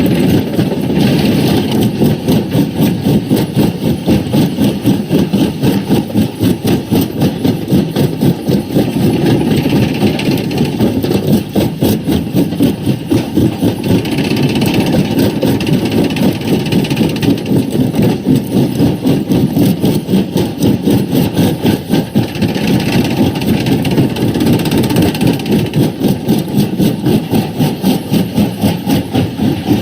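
Quarry primary rock crusher running, a heavy mechanical churning that pulses in a steady rhythm about three times a second, with scattered knocks of rock being broken.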